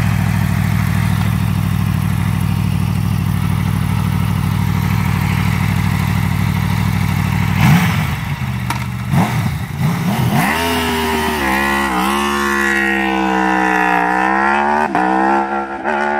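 Aprilia Tuono V4 motorcycle's V4 engine idling steadily, then blipped a few times about eight seconds in as the bike pulls away. It then accelerates off hard, the pitch climbing through the gears with a short dip at each upshift.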